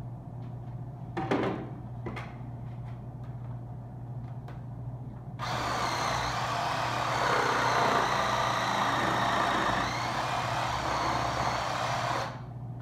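Reciprocating saw (sawzall) running, cutting through a hog carcass to take off the ham; it starts abruptly about five and a half seconds in, runs for about seven seconds and stops suddenly. Before it, a few knocks as things are handled.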